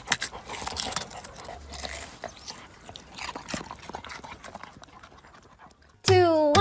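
Dog nosing and digging in loose soil: scattered scratching and snuffling sounds that fade away over several seconds. Near the end a sudden loud pitched call, falling in pitch, cuts in.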